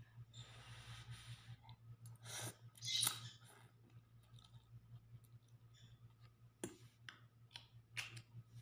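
Slurping hot instant noodles off a fork: a soft breathy hiss first, then a louder slurp about three seconds in. A few sharp clicks follow near the end.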